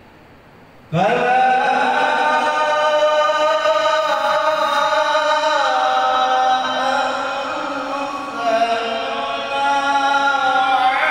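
A male Qur'an reciter (qari) chanting in the melodic tilawah style: about a second in he slides up into a long, held, ornamented phrase, and a second phrase starts after a brief dip about eight and a half seconds in.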